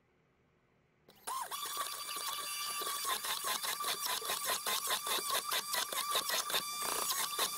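Electric blender switched on about a second in and running with a steady whine and a rapid pulsing, blending the bread, walnut, oil and garlic mixture for skordalia.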